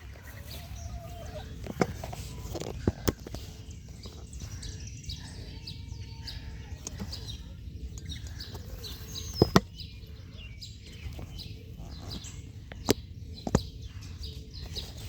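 Birds chirping in many short high calls over a steady low rumble, with a few sharp taps or knocks that are the loudest sounds, two of them close together about nine and a half seconds in.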